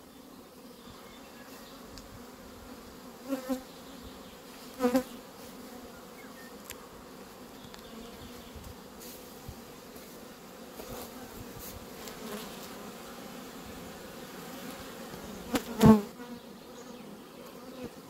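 Honey bees buzzing around the entrances of an AZ hive container: a steady hum of flying bees, with a few brief, louder buzzes.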